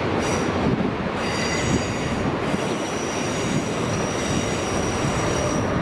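Freight train's grain hopper wagons rolling past with a rumble, their wheels squealing in high thin tones that come and go, one squeal held through most of the second half.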